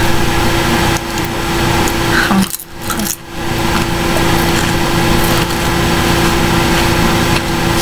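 Seaweed-and-salt potato chip being chewed close to the microphone, with crunching and crackling, over a steady hum and hiss from the computer's recording.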